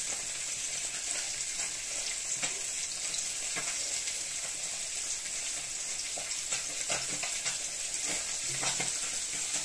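Young taro leaves being torn by hand as their veins and stalks are stripped away: scattered faint crackling tears over a steady hiss.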